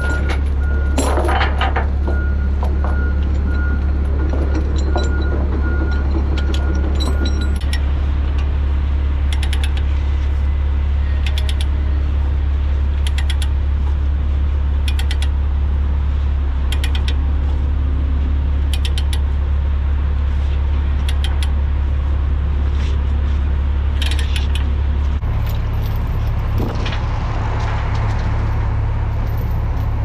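Steel tie-down chain clinking and rattling against the dozer's track and the trailer deck as it is pulled through and hooked, with short sharp metal strikes every second or two. A steady, loud, low diesel engine idle runs underneath.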